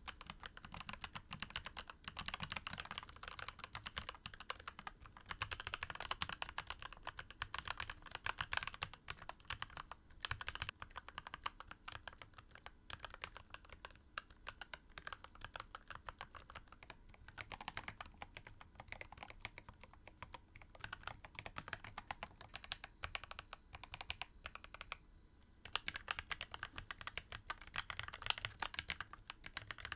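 Typing on a mechanical keyboard during a keycap sound test: a dense, fast run of key clacks, with a short pause about 25 seconds in.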